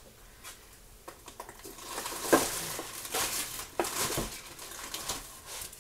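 Food packaging rustling and crinkling as grocery packages are handled, with a few sharp clicks and knocks. It starts about a second in, and the loudest crackle comes a little over two seconds in.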